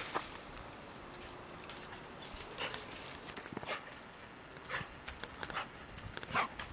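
A dog running on a dirt trail: a few scattered paw footfalls, more of them near the end.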